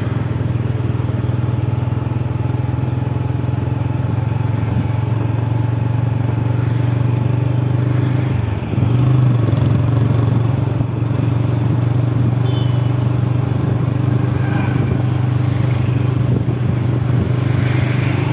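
A vehicle engine running steadily at close range, a constant low hum. Its note dips briefly about eight and a half seconds in and comes back a little louder.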